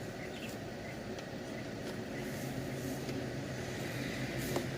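Steady low hum of a running motor or engine, growing a little stronger about two seconds in, with a few faint clicks.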